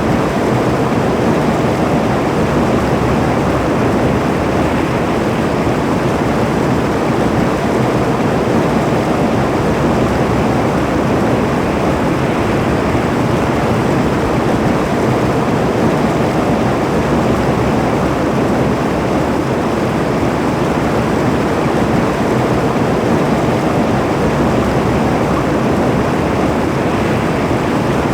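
A steady, loud rushing noise with no breaks or changes in level.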